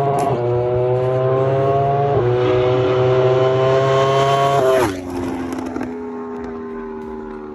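Yamaha R1 inline-four with an SC-Project exhaust accelerating hard through the gears: the engine note climbs and drops sharply at each upshift, twice in quick succession. About five seconds in it drops again, and the note then sinks slowly and fades.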